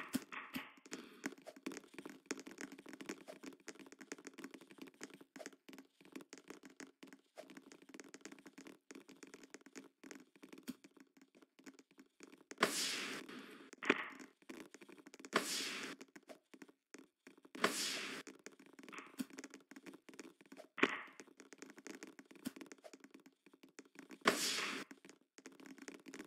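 Volleyball match play in a gym: a run of short thuds and taps from ball contacts and footfalls over a steady low background. Four short, loud, hissing bursts of noise come in the second half.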